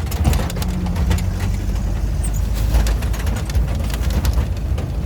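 Off-road vehicle's engine running at low speed in second gear: a steady deep rumble with frequent short knocks and rattles throughout.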